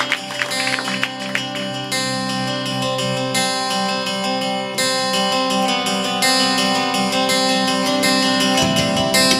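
Acoustic guitar strumming the chords of a song intro, with deeper bass notes joining near the end.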